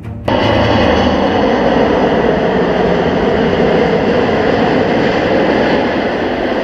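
Airbus A380-861's four Engine Alliance GP7200 turbofan engines running: a loud, steady jet roar with a faint high whine over it, cutting in suddenly as music stops just after the start.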